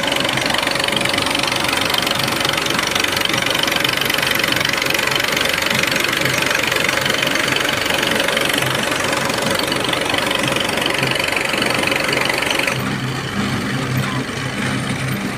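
Tractor engine running steadily, driving a tube-well boring rig and its pump. About 13 seconds in the sound changes abruptly and the engine's low beat comes through more clearly.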